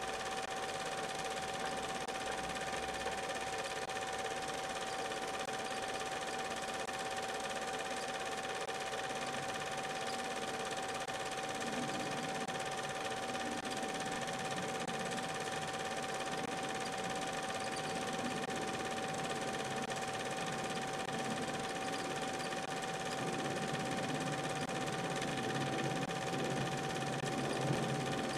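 Film projector running steadily: continuous mechanical clatter under a constant tone, unchanged throughout.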